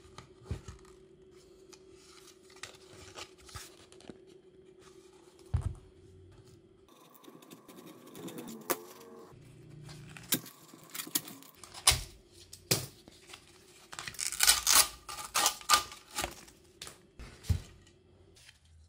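Hands taking apart a broken 6-inch loudspeaker: knocks and scrapes of the plastic frame on the cutting mat, and the paper cone being torn and cut away, heaviest in a dense run of tearing and cutting noises about fourteen to sixteen seconds in.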